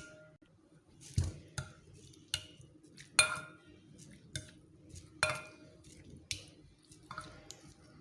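A fork mashing cooked garlic cloves into olive oil, clinking against the bowl about eight times at irregular intervals, roughly once a second; some clinks ring briefly.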